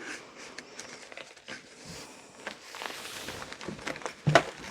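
Thick rope cord rustling and rubbing as it is wound around a wooden letter by hand, with scattered light taps and a sharper knock about four seconds in.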